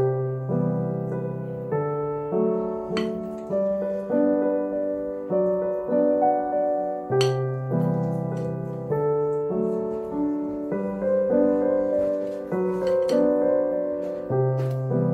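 Background piano music: a slow, gentle keyboard melody over sustained chords, with a few faint clicks.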